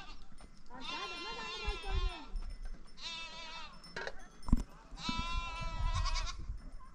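Flock animals bleating: three long, wavering bleats, the first the longest. A sharp knock comes about four and a half seconds in.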